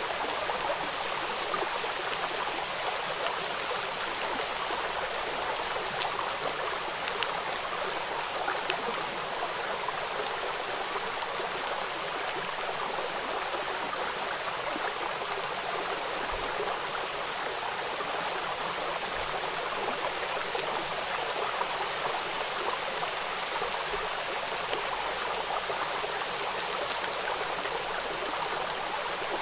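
Steady heavy rain falling on a hard wet surface, an even hiss dotted with many separate drop impacts.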